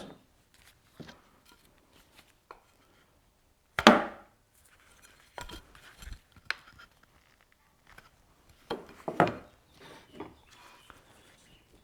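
A sharp hand chisel pared into blackwood by hand pressure, with no mallet: a few separate cutting and knocking sounds with quiet between them, the loudest about four seconds in and another around nine seconds.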